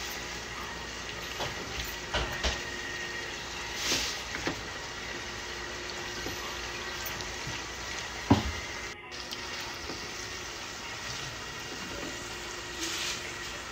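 Macaroni in a creamy minced-meat sauce sizzling in a frying pan as a silicone spatula stirs it, with a steady hiss and a few soft knocks and scrapes of the spatula against the pan, the sharpest about 8 seconds in.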